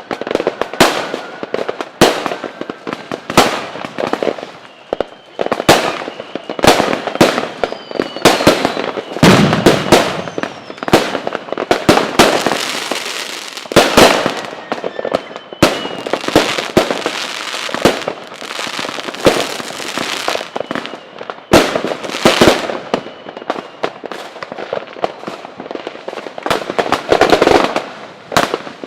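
Fireworks going off in quick, dense succession: sharp bangs and crackling, with a few faint whistles gliding in pitch.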